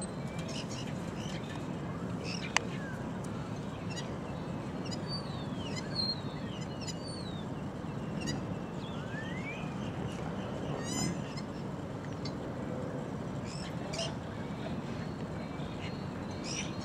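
Small birds chirping and calling repeatedly, short rising and falling chirps with a brief trill about eleven seconds in, over steady low outdoor background noise; a single sharp click about two and a half seconds in.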